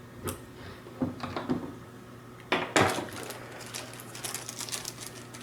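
Light clicks and knocks of small hard parts being handled, with two louder knocks about halfway through, then a run of faint ticks: a small screwdriver and robot kit parts being worked and moved about.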